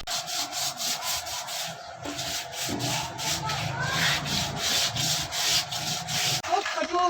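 Hand sanding or filing: an abrasive rubbed back and forth over the workpiece in quick, even strokes, about three to four a second.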